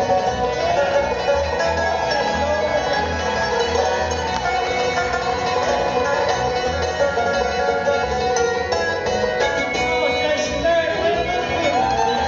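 Bluegrass band playing live, with a five-string banjo picking lead over guitar and a steady upright-bass beat.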